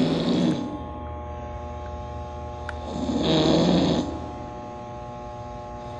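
A man snoring: the end of one snore in the first moment, then a full snore lasting about a second starting nearly three seconds in, over a steady low hum.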